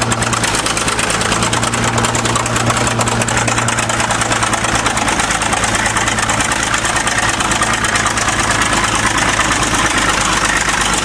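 1953 International TD-20 crawler bulldozer's diesel engine running steadily, a loud, fast, even clatter.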